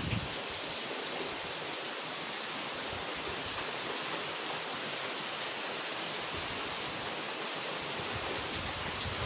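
Rain falling on dense tree foliage, a steady, even hiss.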